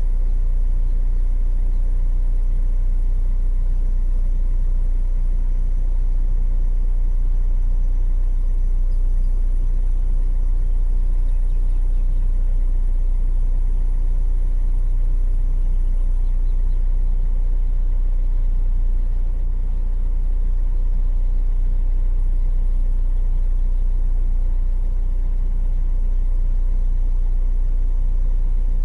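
A steady, loud low rumble with no distinct events in it.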